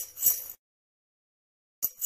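Sleigh bells shaking in a steady rhythm of about three shakes a second. They cut off abruptly about half a second in, leaving dead silence for over a second, then start again just before the end.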